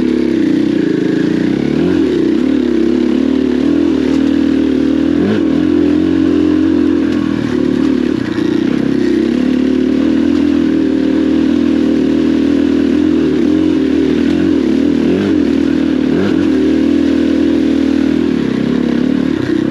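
KTM 500 EXC dirt bike's single-cylinder four-stroke engine running at low to moderate revs under way. Its pitch rises and falls with the throttle, easing off and picking up again several times.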